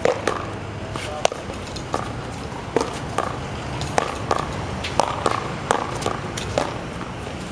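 Paddleball rally: a rubber ball struck by paddles and bouncing off the wall and concrete court, heard as about a dozen sharp pops at irregular intervals, some with a short ring.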